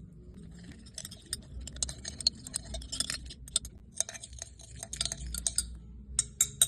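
Rapid, irregular clinking of a utensil against a glass container, as in stirring, with a few louder taps near the end.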